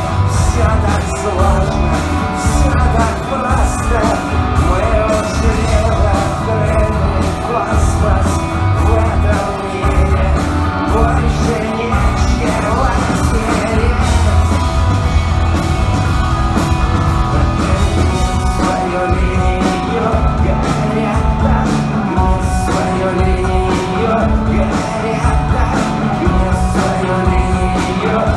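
Rock band playing live: electric guitars, keyboards and a drum kit with a steady, heavy kick-and-bass pulse, with singing over it.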